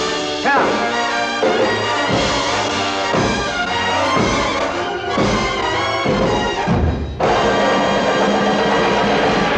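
Brass-led orchestral music from a film soundtrack, building through the closing bars of a song-and-dance number. It breaks off briefly about seven seconds in, then comes back in with a sustained final passage.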